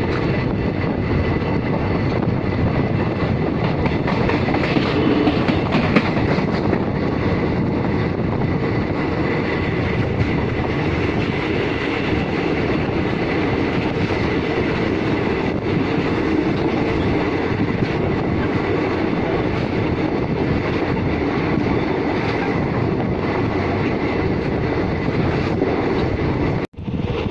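ICF passenger coaches running at speed: a steady rumble of wheels on the rails with a clickety-clack over the rail joints. The sound cuts out briefly near the end.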